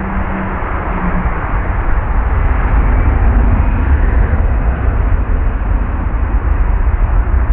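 Jet engine noise from an Airbus A320 at close range: a deep rumble under a loud rush. It swells over the first couple of seconds and then holds steady.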